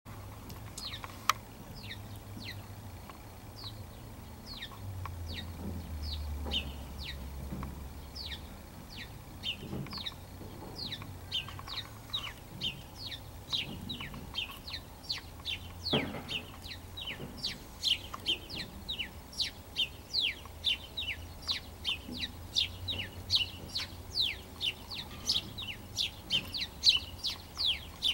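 A small bird chirping over and over: short, high chirps that drop in pitch. They come sparsely at first and build to about two a second in the second half. A sharp click sounds about a second in.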